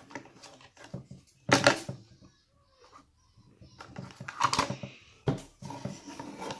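Handling noises as a plastic toy figure is worked around in slime: a few separate clicks and knocks, the loudest about a second and a half in, two more near the end.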